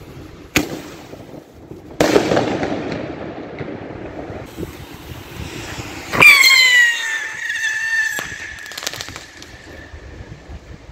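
Street fireworks: a sharp firecracker bang about half a second in and a louder bang at two seconds. About six seconds in comes a loud shrill whistle that drops in pitch and then holds steady for about four seconds, with crackling partway through.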